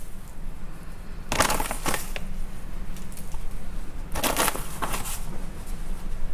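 Coarse Japanese sea salt scattered by hand over raw mackerel (saba) fillets in a glass baking dish, the grains pattering onto the fish and glass in two short bursts about a second and a half and four seconds in. This is the heavy salting that starts a salt-and-vinegar cure for sushi. A low steady hum runs underneath.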